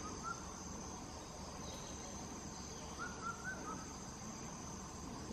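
Steady high drone of crickets, with two small runs of short high chirps, one at the start and one about three seconds in.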